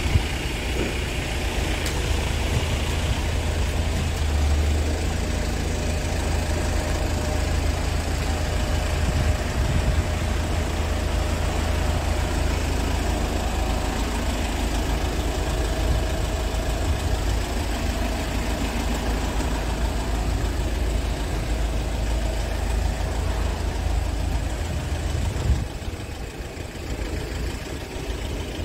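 Scania R450 tractor unit's 13-litre inline-six diesel engine idling steadily, a low rumble that drops slightly in level near the end.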